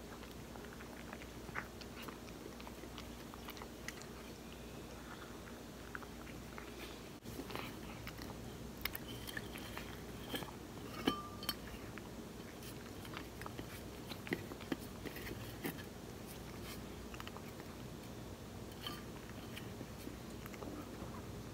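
A cat eating soft chicken cat food from a stainless steel bowl: wet chewing and mouth smacks with many small scattered clicks.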